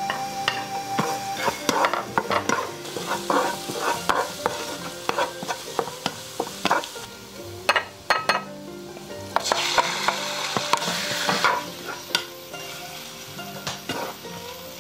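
Wooden spatula stirring and scraping chopped shallots and garlic frying in a nonstick pan, with a light sizzle and frequent clicks of the spatula on the pan and bowls. About ten seconds in the sizzle grows louder for a couple of seconds as thin-sliced meat goes into the hot pan.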